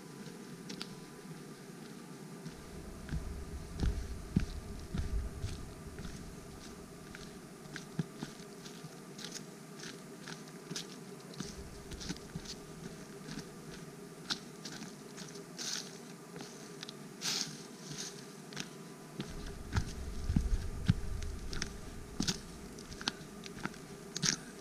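Footsteps crunching on dry fallen leaves and twigs on a forest path, giving irregular crackles and crunches. A low rumble runs under them for much of the first half and again near the end.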